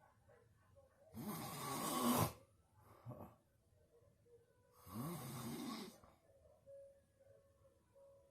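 Loud snoring: two long snores about four seconds apart, each lasting about a second, with a brief faint one between them.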